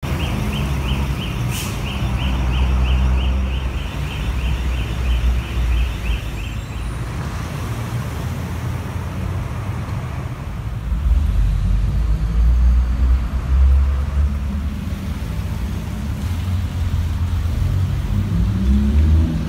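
City street traffic: the steady engine rumble of cars and a bus. For the first several seconds a rapid series of high chirps or beeps repeats about three times a second, and near the end an engine rises in pitch as a vehicle pulls away.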